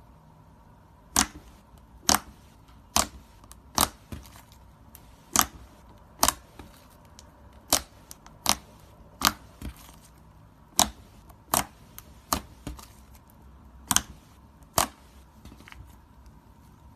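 A series of sharp clicks or snaps, about sixteen in all, spaced roughly a second apart and irregularly, over a quiet background.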